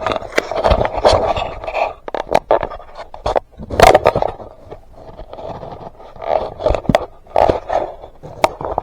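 Handling noise as the camera is picked up, moved and set in place: irregular scraping with many sharp knocks close to the microphone.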